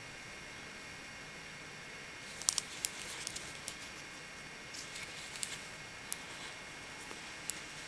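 Metal knitting needles clicking against each other as stitches are worked: a quick cluster of sharp clicks about two and a half seconds in, then scattered single clicks, over a steady faint hiss.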